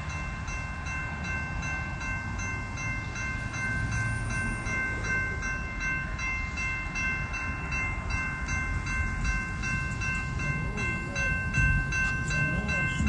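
Railroad grade-crossing warning bell ringing steadily at about two strokes a second as the crossing signals flash for an approaching train, over a low rumble.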